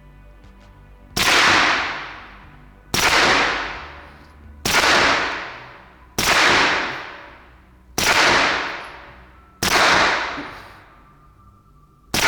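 Suppressed Sterling Mk.6 9mm firing single shots: six shots about a second and a half apart, each a sharp report with a long fading echo. A seventh shot comes right at the end.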